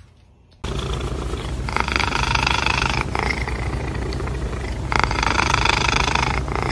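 Domestic cat purring while its head is scratched: a steady rumble that swells twice, for about a second and a half each time.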